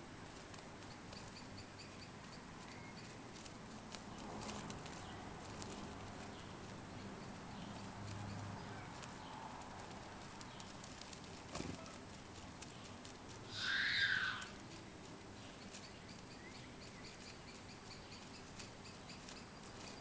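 A bird gives one short call lasting about a second, about two-thirds of the way through; it is the loudest sound here. Around it is faint outdoor background with scattered soft ticks and taps.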